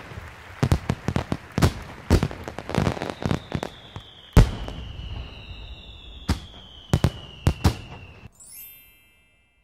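Fireworks going off: a dozen or more sharp bangs at uneven intervals over steady crackling, with long, slowly falling whistles behind them. The bangs stop about eight seconds in, followed by a brief high tinkle.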